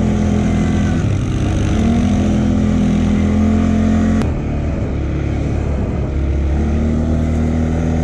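Quad bike (ATV) engine running while riding on a dirt track, its pitch stepping up and down with the throttle. There is an abrupt break in the sound about four seconds in.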